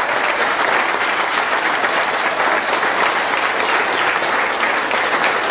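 A small crowd applauding: steady, dense clapping throughout.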